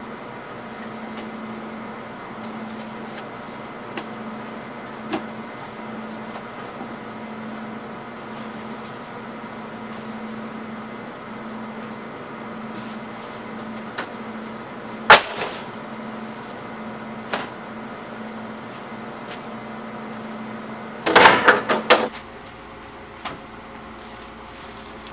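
Plastic bread crates being handled, with a few light knocks, one sharp knock about midway and a clatter of crates being moved and stacked near the end, over a steady pulsing background hum.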